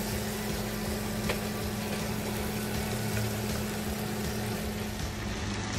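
Catfish pieces in a thick spice masala simmering and sizzling in a frying pan, over a steady low hum, while a silicone spatula turns the fish.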